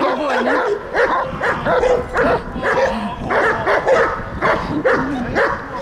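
Dog barking and yelping in quick repeated calls, about two or three a second.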